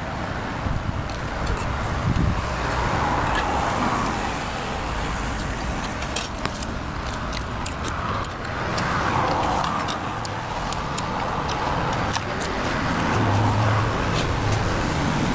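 Passing road traffic, a steady rumble that swells and fades in waves. Over it come scattered sharp clicks of a metal spoon against a bowl and chewing.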